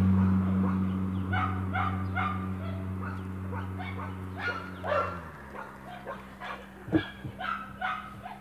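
A dog giving short, high yips over and over. Under them a steady vehicle engine hum fades and drops away about five seconds in.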